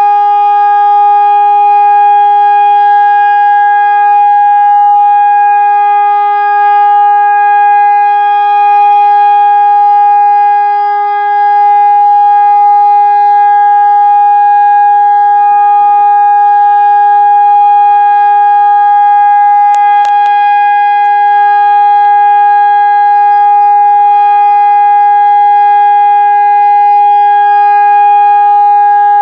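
Hörmann ECN electromechanical warning siren sounding a loud, steady, unwavering tone: the all-clear signal of a siren test.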